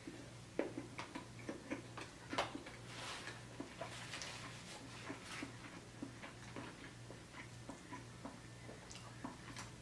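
Close-miked chewing of crispy deep-fried orange chicken: irregular crunches and wet mouth clicks, strongest in the first few seconds.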